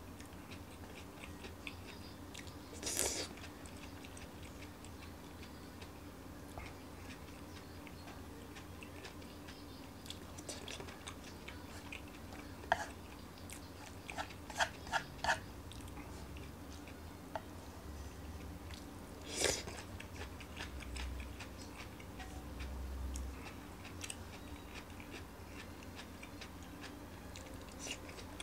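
A man eating a lettuce stir-fry from a frying pan: quiet chewing, with light clicks of wooden chopsticks against the pan coming in small clusters. Two brief, louder rushes of noise come through, one a few seconds in and one past the middle.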